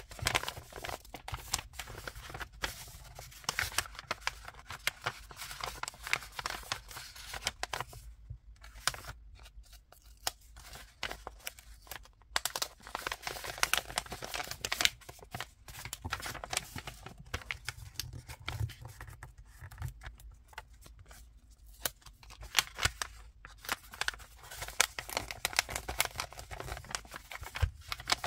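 Paper rustling and crinkling as printed paper wrappers and memo sheets are handled, slid together and smoothed flat by hand. There are many small sharp taps and a few short pauses.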